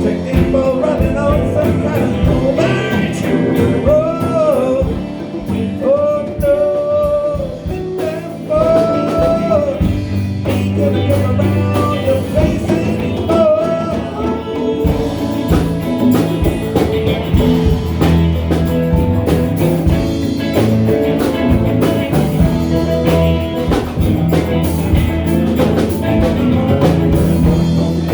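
A band playing ragtime/blues-style music, with a bending melody line over a steady rhythmic accompaniment in the first half.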